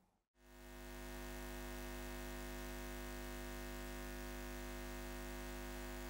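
Steady electrical hum with a stack of overtones, fading in about half a second in and then holding level.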